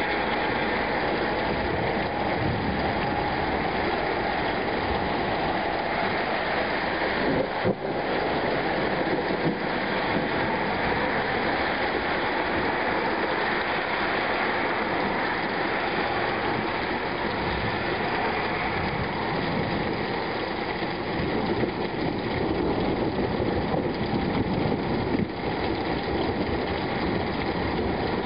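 Steady rain falling during a thunderstorm, a continuous even hiss.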